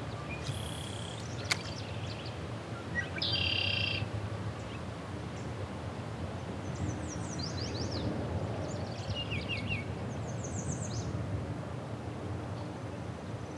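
Songbirds calling from the bank trees in short, high chirps and quick trills, several times over a steady low background of outdoor noise, with a single light click about one and a half seconds in.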